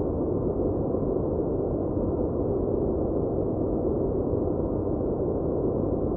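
Steady white-noise track playing at an even level, deep and muffled rather than hissy.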